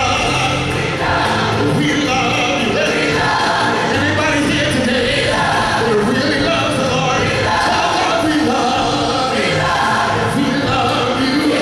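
Live gospel music: a male soloist singing into a microphone, backed by a large choir and instrumental accompaniment.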